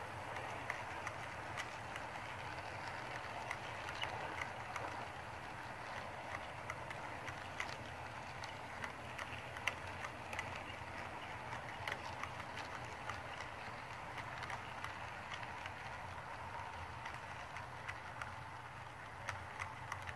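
Model train freight cars rolling past on the track: a steady rolling noise with scattered sharp clicks from the wheels on the rails, over a low steady hum.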